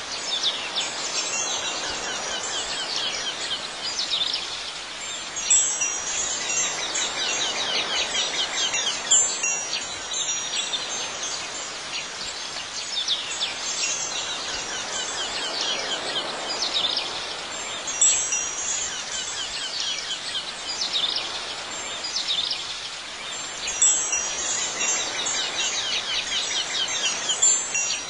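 Wind chimes tinkling continuously over a steady background hiss, with brighter clusters of high ringing strikes every few seconds.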